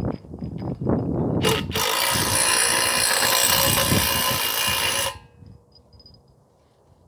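Impact drill running in one long, loud burst of about three and a half seconds, then stopping abruptly, as the concrete slab is drilled or a bracket is bolted down. Before it, a few knocks and clatters of handling.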